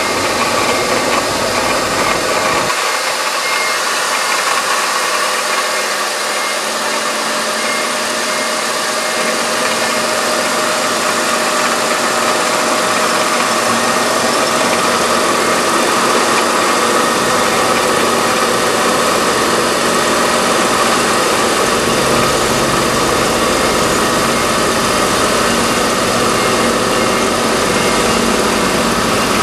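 Car engine running at idle, a loud steady mechanical noise; the low rumble thins out about three seconds in and comes back after about twenty seconds.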